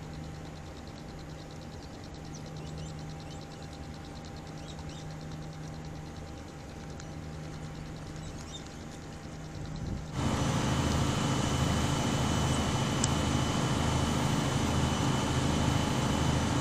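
Engine running with a steady hum. About ten seconds in it jumps suddenly to a louder engine drone with a slow, regular throb.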